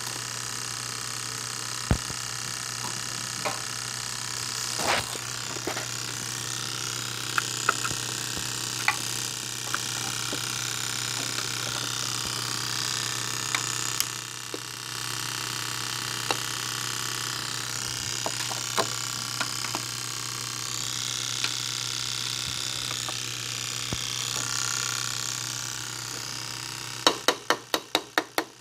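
Odd clicking from the passenger side of a shut-down BMW X5 M's S63 twin-turbo V8 engine bay, scattered single clicks over a steady hiss and hum, with a quick run of about six clicks near the end. The owner wonders whether an injector is still firing after shutdown, while the electric engine fan has not come on.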